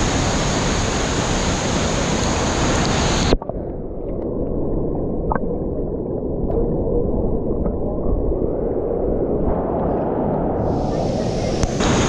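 La Fortuna waterfall pounding into its plunge pool, a steady loud rush of water. About three seconds in the sound abruptly turns muffled and low, as heard with the microphone under the water, and the full bright rush returns near the end.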